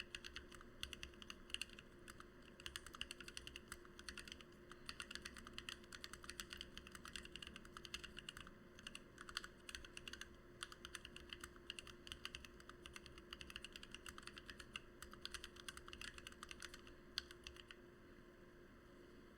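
Steady, fast typing on a Lily58 split mechanical keyboard with lubed and filmed Gateron Black Ink V2 linear switches and blank PBT OEM-profile keycaps: a continuous run of keystroke clacks that stops about two seconds before the end.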